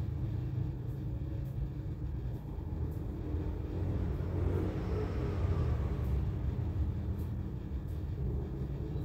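Steady low rumble with no clear source.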